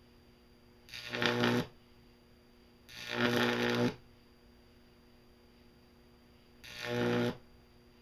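Unballasted OBJY2 microwave oven transformer drawing high-voltage arcs: three loud buzzing bursts, each under a second, with the transformer's faint steady mains hum between them.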